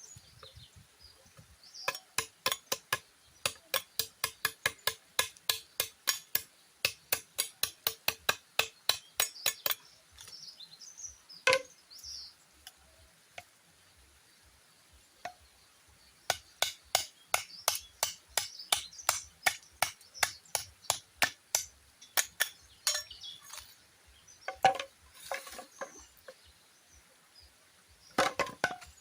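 Quick runs of chopping strikes on bamboo, about three to four blows a second, broken by pauses and a few heavier single blows.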